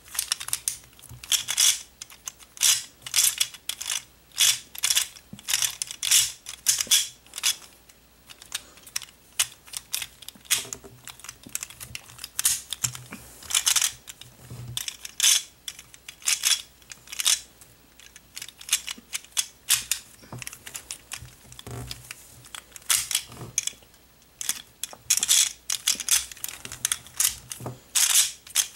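A Gear Shift, a geared 2x2 shape-mod twisty puzzle, being turned by hand: irregular runs of quick plastic clicking and clacking as its gears mesh and its halves are pulled apart and turned, with short pauses between runs.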